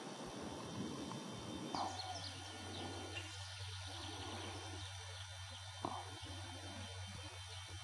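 Faint, scattered bird calls, short high chirps, over a steady low hum that sets in about two seconds in, with a couple of brief clicks.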